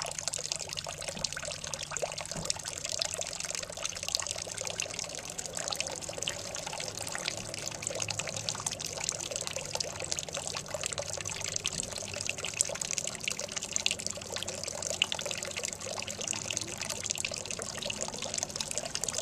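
Pet drinking fountain's water trickling and splashing steadily, with many fine wet ticks as a cat laps at the stream, over a low steady hum.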